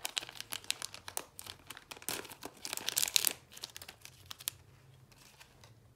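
Clear plastic packaging crinkling and crackling as it is handled, busiest about two to three seconds in, then quieter.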